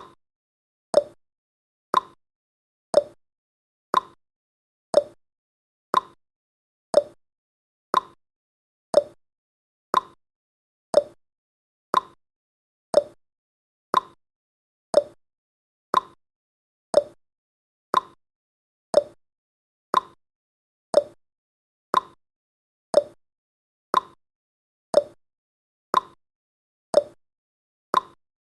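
Clock-tick sound effect of a countdown timer, one sharp tick each second, seemingly alternating between a higher and a lower tick like a tick-tock.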